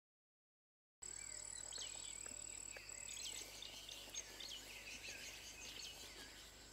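After a second of silence, faint savanna ambience: many short bird chirps and a steady high insect whine that stops about three seconds in.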